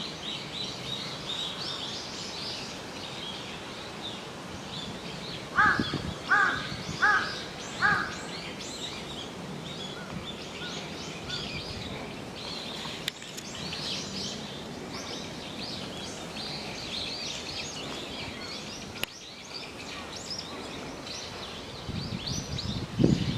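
Many small birds chirping busily and continuously, with a crow cawing four times in quick succession about six seconds in. Near the end come a few loud, deeper sounds.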